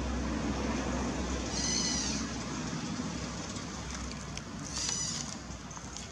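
Newborn baby monkey crying: two short, high-pitched cries, about two seconds in and again near five seconds, over steady background noise.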